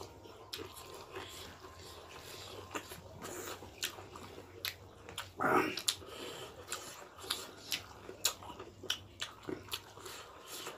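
Close-miked chewing and lip-smacking of people eating beef curry and rice by hand, heard as many small wet clicks. One louder, half-second mouth noise comes about five and a half seconds in.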